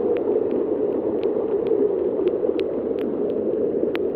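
A steady rush of falling water in the rain, with scattered sharp ticks of raindrops landing close by.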